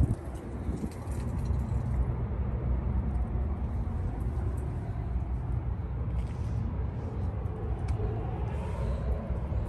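Steady low outdoor rumble with a few faint, short clicks.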